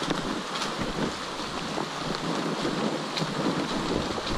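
Steady hiss of rain falling on dense forest foliage, with a few faint drops ticking close by.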